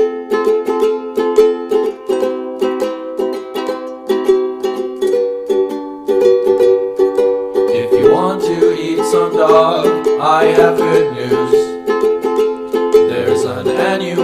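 Ukulele strumming a steady chord pattern. About halfway through, a voice comes in over it, singing or humming without clear words.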